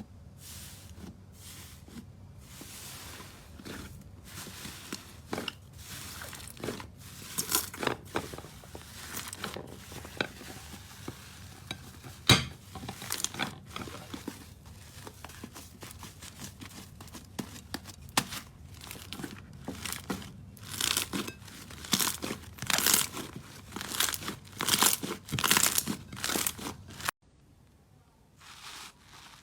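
Hands squeezing and stretching slime, giving irregular crackling, crunching and popping sounds, denser and louder in the second half. The sound cuts off suddenly near the end.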